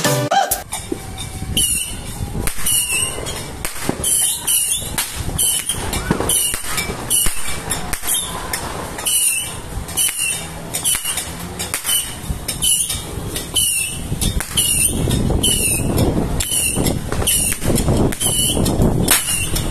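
Diamond Fireworks Crossfire 200-shot repeater firing, its shots launching one after another about every half second, each with a short hiss.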